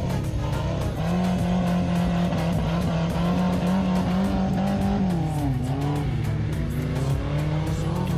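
Small off-road 4x4's engine revving hard as the vehicle spins in tight circles on loose dirt. The revs hold steady, drop sharply about five seconds in, then climb again.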